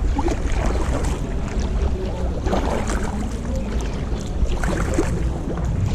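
Canoe paddles dipping and splashing in the lake water, a stroke about every two seconds, over a steady low rumble.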